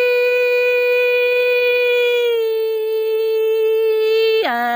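A woman's voice holding one long sung note in Hmong sung poetry (lug txaj), unaccompanied; the note steps slightly lower about halfway through, then drops to a much lower, wavering note near the end.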